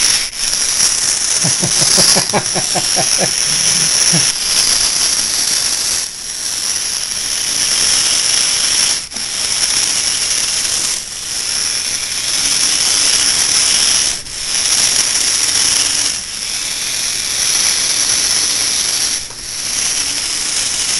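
Small battery-powered electric drive motors of a hobby robot running with a high, steady whine, briefly dropping out every two to three seconds. A short burst of rapid pitched pulses sounds about two seconds in.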